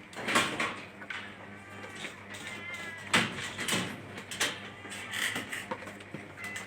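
Cats meowing at feeding time, with several sharp knocks or clatters among the calls, the loudest near the start and about three seconds in.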